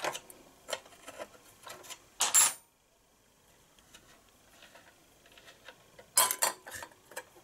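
Metal clinking as a small wrench loosens the oil drain plug of a 1970 Briggs & Stratton 2 hp engine. A sharp, ringing clatter comes a little over two seconds in as the wrench is set down on the metal bench top, and a few more quick clinks follow near the end as the plug is handled over an enamel bowl.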